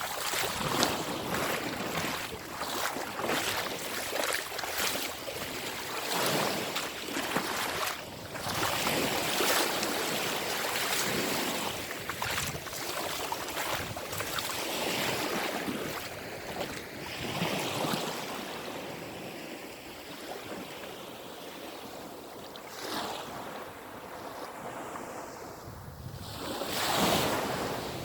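Black Sea waves washing onto the shore, the hiss of the surf swelling and fading, with wind buffeting the microphone.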